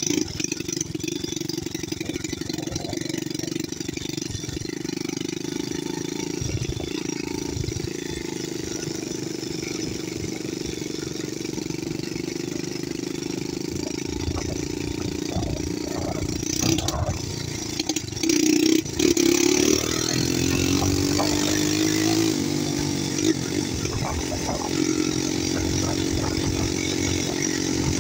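ATV engine running under way, steady for the first half. A few knocks come a little past halfway, then the revs climb and hold higher.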